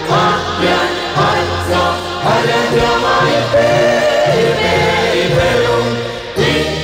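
A group singing a Chin traditional song together in chorus, with a steady low accompaniment under the voices.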